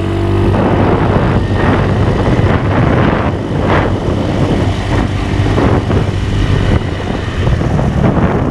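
Wind rushing and buffeting over the microphone of a moving Yamaha Mio Sporty scooter, swelling in gusts every second or so. The engine's steady low hum runs underneath.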